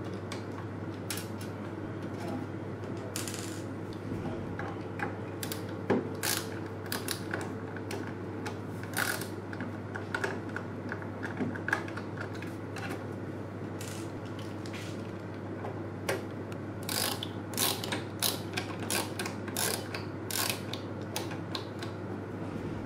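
A screwdriver backing out the small screws of the Cisco ASA 5508-X firewall's top cover, heard as runs of quick sharp clicks with pauses between screws, over a steady low hum.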